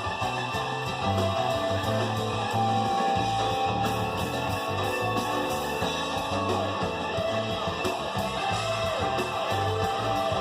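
Guitar-led music with a steady, repeating bass line.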